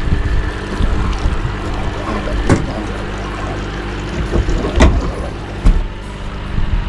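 Steady low rumble on a small fishing boat, broken by a few sharp knocks about two and a half, five and five and a half seconds in.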